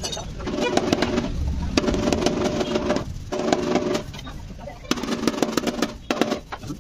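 A hand tool scraping the inside of a scooter's plastic body panel in about five rasping strokes, with short pauses between.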